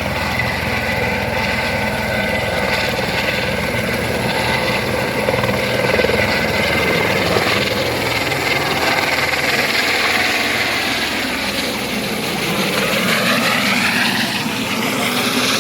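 Helicopter running steadily, rotor and engine noise, with a rising whine near the end.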